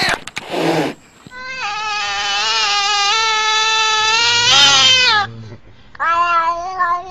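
Black-and-white cat meowing, one long drawn-out meow of about four seconds held at a steady pitch, then a second, shorter meow near the end.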